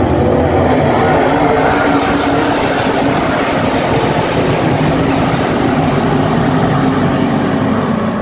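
Engines of a field of dirt super late model race cars running hard together as the pack laps the track, a loud steady din with no let-up, one engine's pitch sagging slightly near the end.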